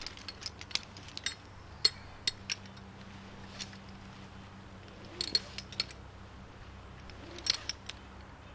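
Metal hardware clinking, a figure-eight belay device and carabiner knocking together, as climbing rope is pulled through them by hand to take up slack. The clicks come scattered and sharp, some singly and some in quick little clusters.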